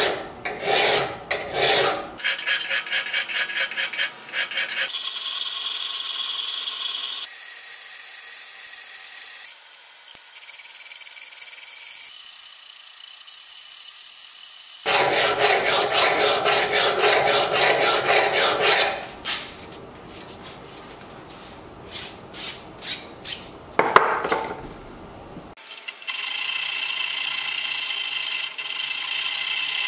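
Flat hand file rasping across the steel bevel of a knife blade clamped in a vise, in strokes of varying length: quick short ones at first, then long, even passes that carry a steady high-pitched ring. These are slow, light passes to blend high and low spots and true the grind lines, ending in draw-filing with the file held crosswise.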